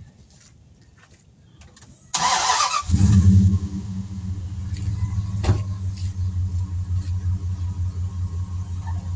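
A short, loud hiss of air about two seconds in, then an air compressor starts up and runs steadily with a rapid low pulsing while the tire is aired up. There is a sharp click partway through.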